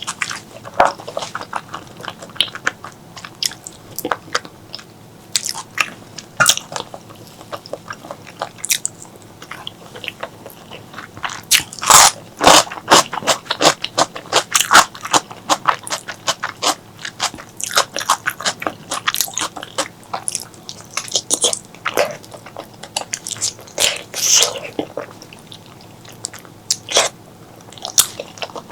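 Close-miked eating: chewing, biting and wet mouth smacks on spicy pork leg curry and rice, a quick irregular run of sharp clicks and squelches that grows busiest partway through.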